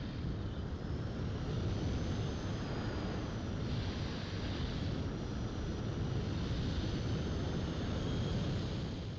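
Onboard sound of an E-flite Opterra flying wing in flight: heavy wind rush over the airframe with a thin, high, steady whine from its electric motor and propeller, wavering slightly in pitch.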